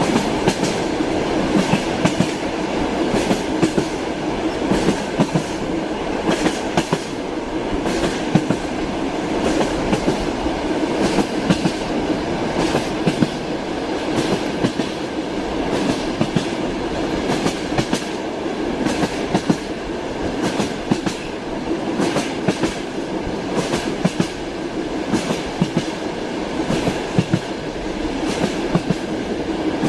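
Train wheels clattering over rail joints while the train runs at speed. A steady rumble carries repeated irregular clicks throughout.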